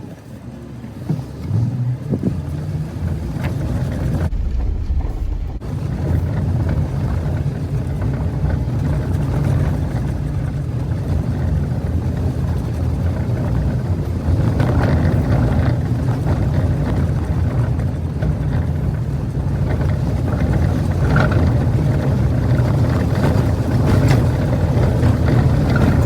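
A Jeep's engine running steadily as it climbs a dirt off-road trail, with tyre and gravel noise over it. The drone slowly grows louder.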